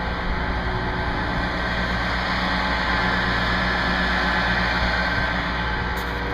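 Lifting machine's engine running steadily while hoisting a rooftop HVAC unit, a continuous low drone that swells slightly midway.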